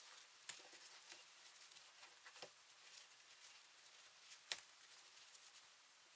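Faint, scattered light clicks and taps of small metal toy-truck parts being handled and fitted together during assembly, with one sharper click about four and a half seconds in.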